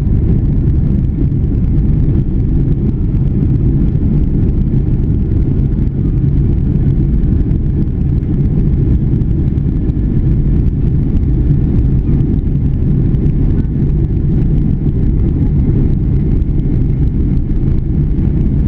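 Steady low rumble inside a jet airliner's cabin as it taxis on the ground before the takeoff roll.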